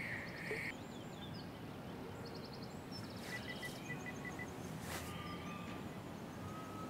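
Quiet outdoor ambience: small birds chirping and trilling now and then over a steady low hiss.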